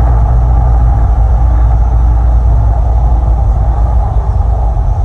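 Loud, steady deep rumble from an artificial volcano show's sound system as the eruption sequence begins.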